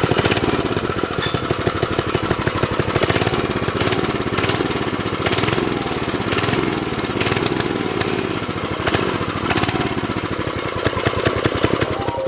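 Briggs & Stratton 5 hp single-cylinder flathead engine on a mini bike running, its speed rising and falling several times.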